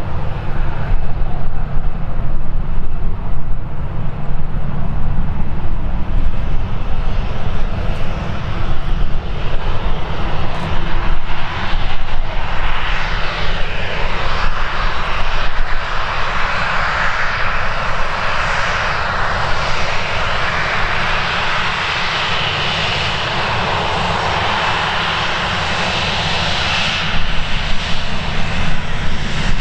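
Jet airliner engines passing close by: a constant low rumble, joined about halfway through by a rising whine and hiss that grows strongest over the second half. Storm wind buffets the microphone.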